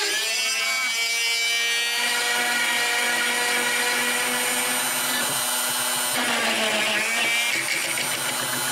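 Wood router running with a steady whine while its straight bit, moved by the homemade CNC machine, cuts a countersink hole into a pine block. The pitch shifts slightly as the cut changes, about a second in and again near the end.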